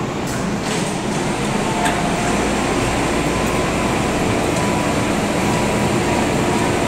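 MTR M-Train electric multiple unit pulling out behind the platform screen doors: a steady rumble and hiss that grows a little louder about two seconds in, with a faint steady whine over it.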